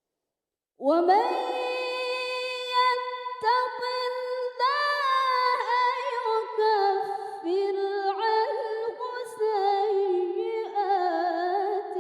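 Female Quran reciter's voice in melodic tilawah recitation, starting about a second in and moving through long held notes with wavering ornaments, broken by short breaths.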